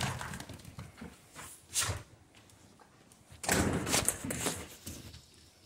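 A dog moving about on a tile floor: scattered short scuffs and clicks, with a louder rustling burst about three and a half seconds in that lasts about a second.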